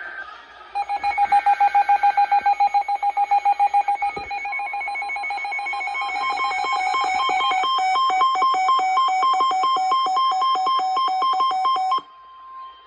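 Weather radio alert tones sounding just before a severe thunderstorm warning. A rapid train of electronic beeps, about eight a second, starts about a second in. From about six seconds the beeps alternate with a second, higher tone. The beeping cuts off suddenly near the end, leaving a faint steady tone.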